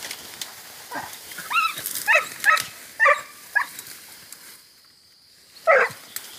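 Hunting dog barking in short, high yelps on an armadillo: a quick run of barks, a pause, then one loud bark near the end.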